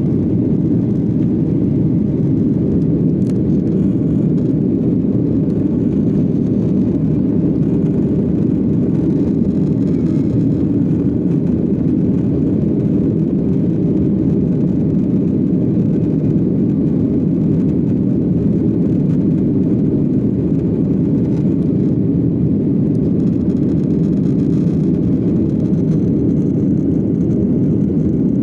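Jet airliner engines and airflow heard from inside the passenger cabin: a steady low rumble that holds level throughout.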